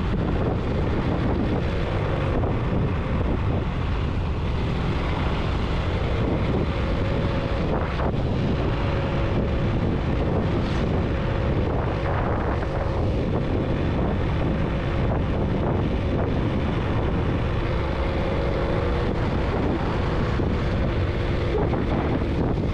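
Steady engine and road noise from a vehicle on the move, with wind on the microphone and a few light knocks from bumps.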